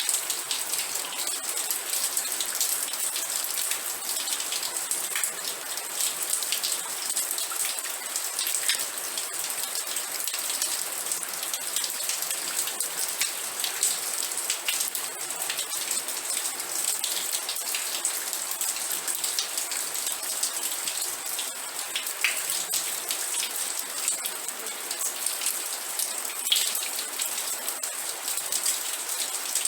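Steady rain falling, with many individual drops pattering and ticking close by.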